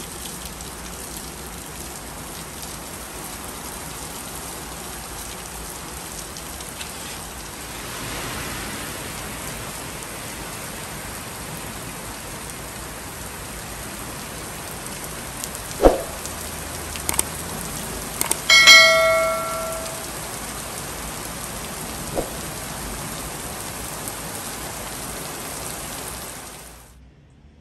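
Heavy rain falling steadily. About two-thirds of the way through comes a sharp knock, a few clicks, and then a short bell-like ring that fades over about a second.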